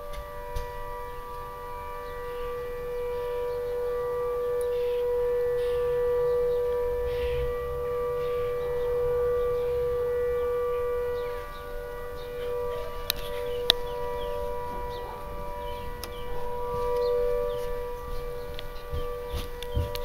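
Air raid siren sounding one steady, unwavering pitch, growing louder for several seconds in the middle before easing back.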